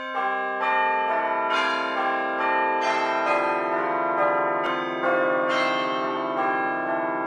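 Bell-like chime notes ringing over one another in a short intro jingle, a new note struck every half second or so and each left to sustain.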